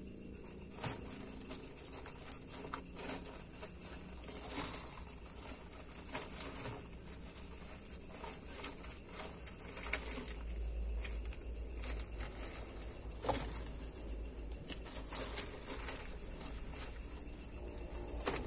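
Faint, scattered scratches and taps of a juvenile Asian water monitor's claws on driftwood and bark substrate, over a steady high whine and, from about halfway, a low rumble.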